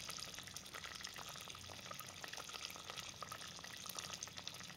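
Thick dark-berry jam boiling hard in a stainless saucepan, its bubbles popping in a steady, very crackly patter of fine ticks. The crackly bubbling marks the last stage of jam cooking: most of the water has boiled off and the jam is nearing its setting temperature.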